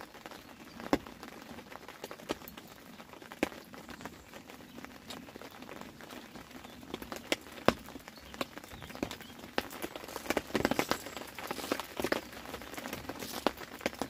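Rain pattering, with scattered drops ticking sharply close by at irregular intervals; the ticks come thicker about ten seconds in.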